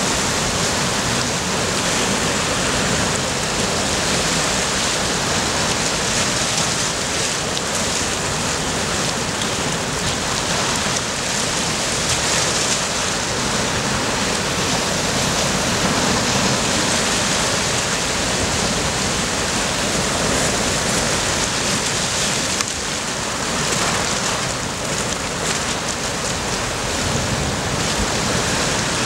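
Sea surf washing over and breaking on shoreline rocks: a steady rushing hiss of water that swells and eases a little, dipping briefly about three-quarters of the way through.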